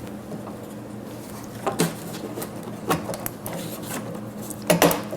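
Scattered metallic clinks and knocks as parts and tools are handled inside an opened dental cassette sterilizer while its water pump is being worked loose, the loudest near the end, over a faint steady hum.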